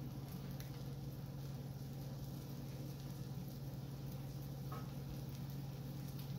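Eggs frying on an electric griddle: faint sizzling with scattered small pops and crackles, over a steady low hum.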